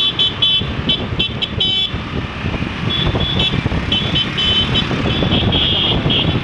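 Motorbike and scooter horns honking in quick, repeated toots over the steady rumble of two-wheeler engines and wind on the move. The honking comes in rapid bursts, pauses briefly about two seconds in, then picks up again with longer blasts near the end.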